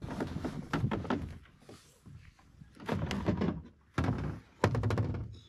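Thumps and knocks on a sea kayak's hull, with rustling, as gear is handled and pulled out of the cockpit. There are clusters of knocks near the start and around three seconds in, then two sharp thumps about four seconds in, the second the loudest.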